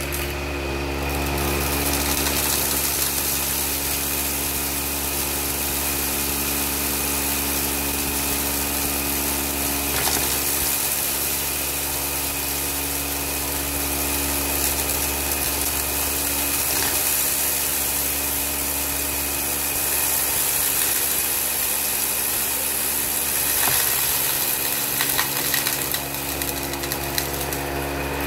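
Dyson Ball Multifloor upright vacuum running steadily on carpet, sucking up rice, candy and rhinestones, with scattered clicks and rattles as the hard bits are pulled through the head.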